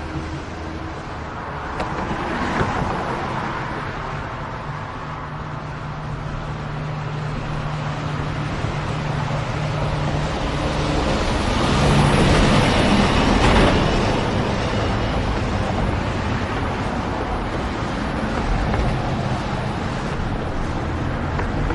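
City street traffic: engines running and vehicles passing, with a steady engine hum for several seconds. One vehicle passes close, loudest about halfway through, then fades back into the traffic.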